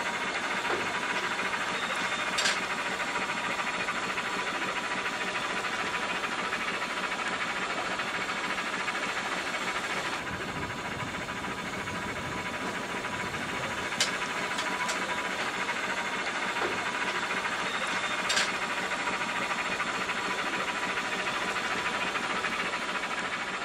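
Steady hiss and running noise of the 1859 steam yacht Gondola under way, with a faint steady whine and a few sharp clicks.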